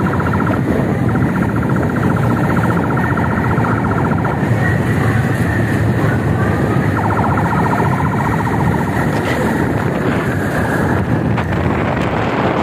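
Wind buffeting the microphone over the rumble of moving traffic, with a police escort siren sounding twice in fast, even pulses.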